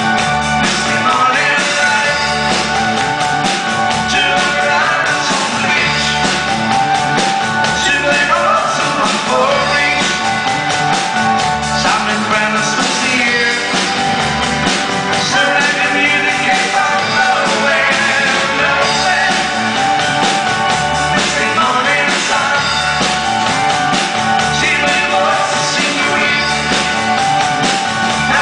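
Live pop band playing a song: sung vocals over acoustic guitar, electric and bass guitars, drum kit and congas, with a steady beat.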